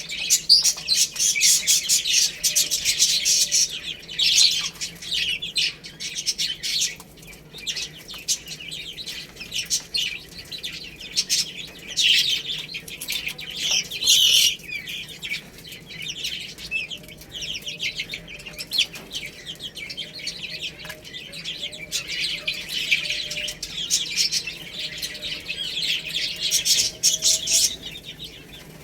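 A group of baby chicks peeping, many rapid overlapping chirps with no pause.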